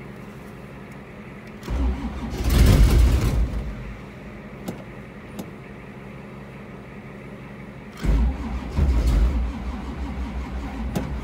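The 1985 Camaro Z28's 383 stroker V8 cranks over on its starter in two tries, about two seconds in and again about eight seconds in, each lasting a couple of seconds without the engine settling into a run. It is a hard cold start in freezing weather on carburetors with no chokes, the cranking held back by small jumper cables.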